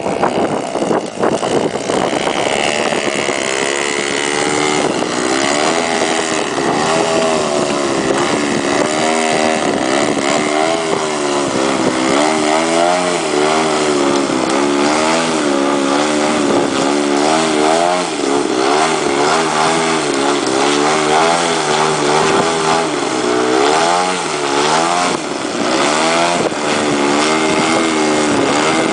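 Small radio-controlled model aircraft engine running at high revs while the model flies manoeuvres, its buzzing pitch rising and falling again and again as it passes and turns.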